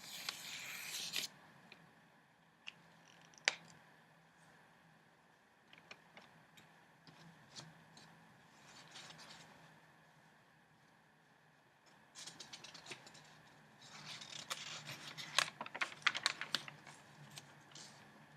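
Newspaper flier paper being handled: a short rustle of the pages at the start, a few scattered sharp taps, then a longer stretch of crisp crinkling and clicking in the last third.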